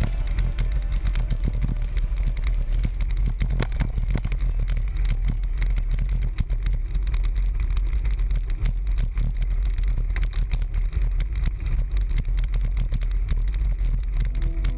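Road bike rolling over a gravel track: a steady low rumble of tyres on loose stones and the bike shaking, with scattered knocks from bumps in the surface.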